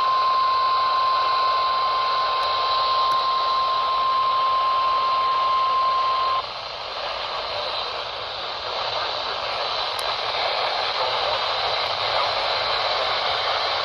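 NOAA Weather Radio 1050 Hz warning alarm tone, a single steady tone over heavy radio static, which cuts off suddenly about six seconds in. The tone signals that a warning, here a severe thunderstorm warning, is about to be read. After it, only the hissing static of the weather-radio receiver remains, with a faint high whine.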